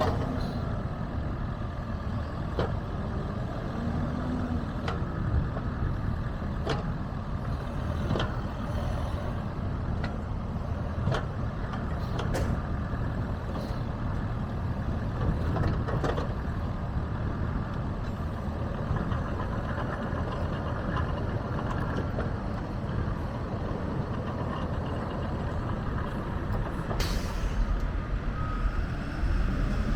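Bobcat E42 mini excavator's diesel engine running steadily, with scattered clanks and knocks and a brief hiss near the end.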